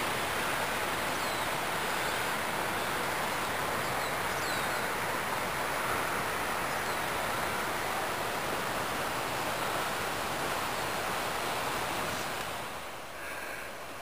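Steady rushing of a creek's flowing water, dropping a little in level near the end.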